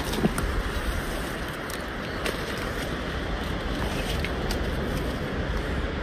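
Rubber boots walking on a soft forest trail of dirt and needles, with a few light crunches and snaps underfoot, over a steady rush of wind buffeting the microphone.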